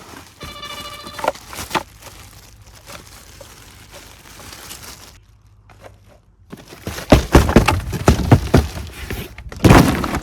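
Packaging and a die-cast model tractor being handled during an unboxing: light rustling and scraping, then a dense run of sharp clicks and knocks in the second half. A short pitched squeak or tone sounds about half a second in.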